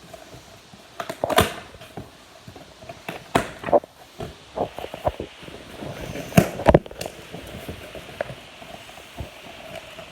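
A cardboard box and its packaging being handled and opened: irregular knocks, rips and crinkles, the loudest about a second and a half in and again near six and a half seconds.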